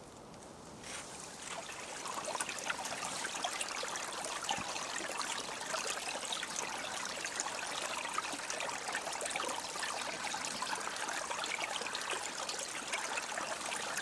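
Shallow stream trickling and babbling over stones: steady splashing water that swells up over the first couple of seconds.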